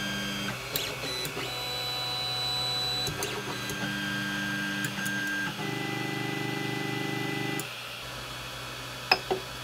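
Creality Ender 3 Pro's stepper motors whining through an auto-home sequence: several runs of a second or two, each at a different steady pitch, with short clicks between them, as the axes drive one after another to their home positions. The last and loudest run ends about two seconds before the end, leaving only a faint hum.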